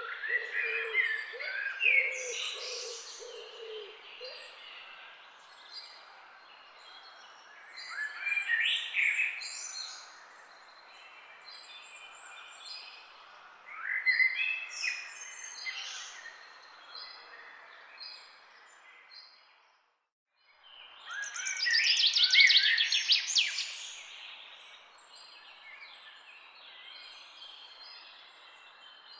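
Songbirds singing in bursts of bright chirps and trills every several seconds over a steady background hiss, with a low repeated note under them in the first few seconds. The sound cuts out completely for about a second near the middle before a loud burst of song.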